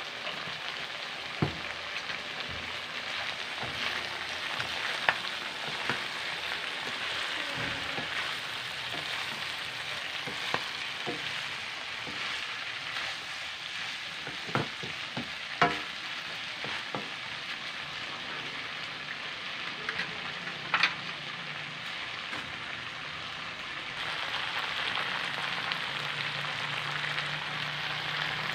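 Meat and vegetables sizzling steadily in a metal wok as they are stir-fried. Occasional sharp knocks and scrapes of the stirring utensil against the wok cut through the sizzle.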